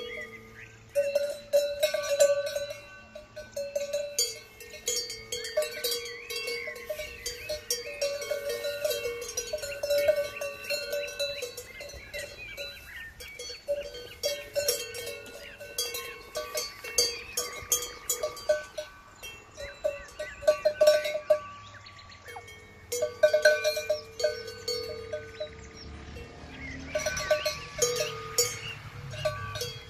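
Cowbells on the collars of grazing cows, clanking and ringing irregularly as the animals move their heads to graze, with more than one bell sounding.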